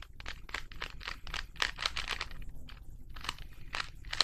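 Plastic Rubik's cube being twisted, its layers clicking in a quick run of turns over the first two seconds, then a few separate clicks.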